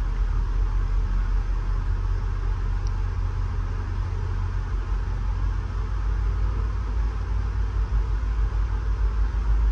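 Steady low rumble and hiss of a Budd-built stainless steel passenger coach rolling along the track, heard from inside the coach.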